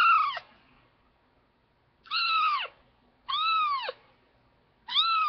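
Four-week-old kitten meowing: short, high calls that rise and then fall in pitch. One ends just after the start, and three more follow about a second and a half apart.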